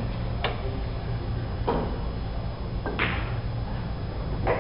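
Pool balls clacking, four sharp knocks about a second apart, over a low steady hum.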